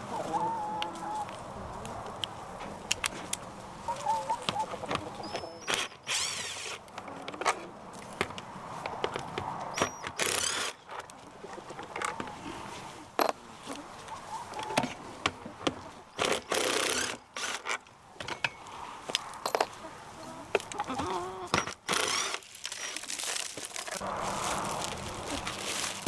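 Packaging rustling and crinkling in repeated bursts, with clicks and knocks, as a product kit is unpacked and handled.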